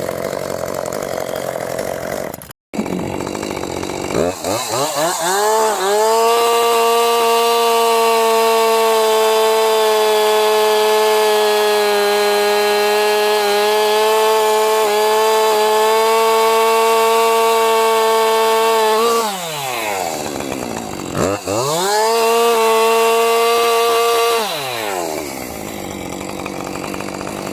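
Two-stroke chainsaw revved to full throttle and held there for about thirteen seconds, cutting into an oak trunk, its pitch sagging slightly under load. It drops back toward idle, revs up again for a few seconds, then settles back to idle near the end.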